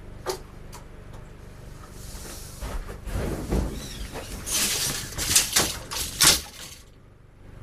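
Footsteps coming up, then rasping and clattering handling noises as a steel tape measure is pulled out beside a coil of electrical cable, with a couple of sharp clicks about five and six seconds in.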